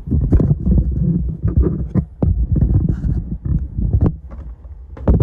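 Handling noise from a phone being moved and carried: clothing and fabric rubbing and knocking on the microphone in a run of irregular low thumps, with a louder knock near the end.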